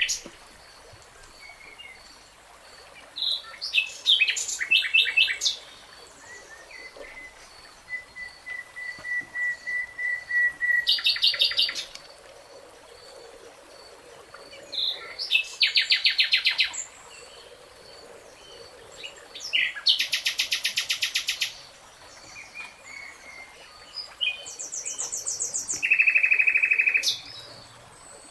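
Songbirds singing: short, loud phrases of fast trilled and repeated notes, one every few seconds, with a long thin steady note held for a few seconds partway through.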